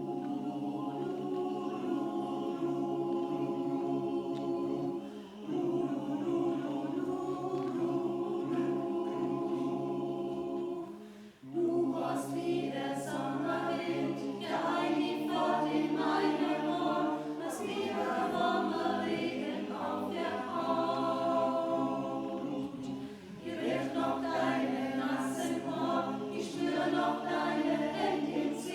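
Choir singing a cappella in several parts. It opens with long held chords, with brief breaks about five and eleven seconds in, then moves into a livelier passage with higher parts.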